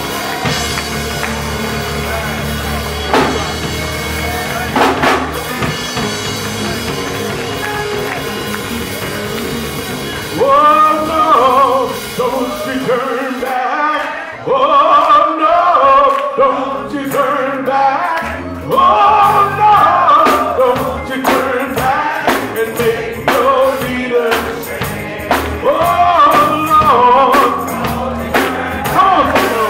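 Gospel music: held keyboard chords, then from about ten seconds in a voice singing into a microphone over the band, with steady percussion hits.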